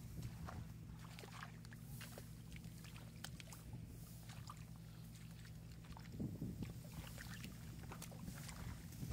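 Fish thrashing and hands splashing in shallow muddy water: scattered small splashes and slaps, with a bigger splash about six seconds in, over a steady low hum.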